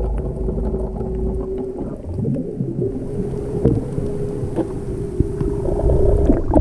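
Boat engine hum heard underwater, muffled by the water: a steady drone whose pitch wavers and slides for about a second, two seconds in, with a few sharp clicks later on.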